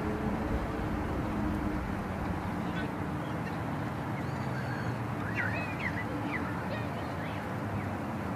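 Outdoor ambience: a steady rumbling hiss, with a few short high bird chirps about halfway through.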